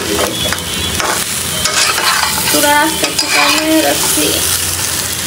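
Metal spatula stirring and scraping pieces of boiled meat around a frying pan, with short squeaky scrapes against the pan, over a steady sizzle of the meat frying in the fat it renders.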